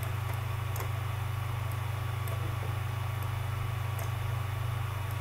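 A steady low electrical hum with faint hiss under it, and a few faint clicks.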